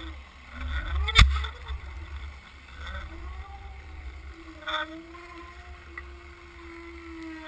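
Boat's motor heard underwater through a towed GoPro housing: a wavering hum over a heavy low rumble of water rushing past the camera. A sharp knock about a second in, and a smaller one later.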